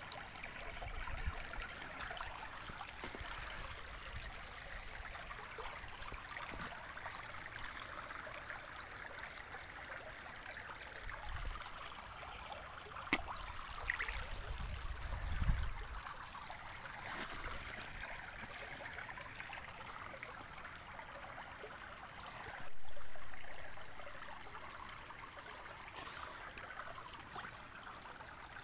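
Shallow stream water trickling over stones. Occasional low rumbles of wind on the phone's microphone come through, and one sudden louder rumble about three quarters of the way through fades over a second or so.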